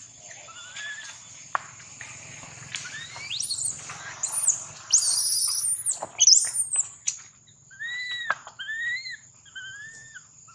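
Long-tailed macaques screaming: loud, shrill, rising screeches in the middle, then a series of short, arched crying calls from the baby macaque.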